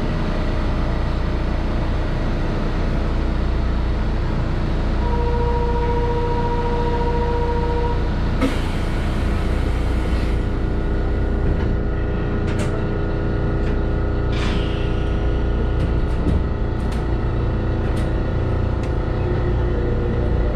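Chiba Urban Monorail 1000 Series train standing at a platform, its equipment giving a steady hum. A single beep is held for about three seconds, a burst of air hiss follows, and scattered clicks come as the train begins to move off.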